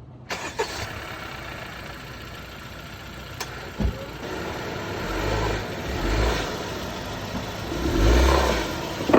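2016 Honda Civic's engine running as the car is driven up onto ramps, with short surges of throttle about five to six seconds in and again near the end.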